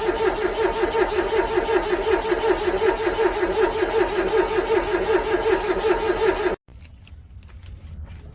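Car starter cranking a cold engine in freezing weather, a fast regular whirring pulse that goes on for about six and a half seconds and then stops suddenly; the engine does not start.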